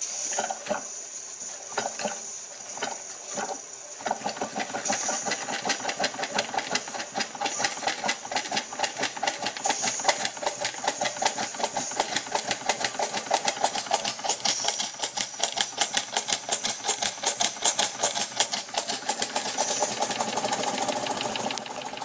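Jensen Model 50 toy steam engine starting up: a few slow, separate strokes for about four seconds, then a fast, even chuffing that quickens and grows louder as the engine picks up speed, its cylinder still warming up.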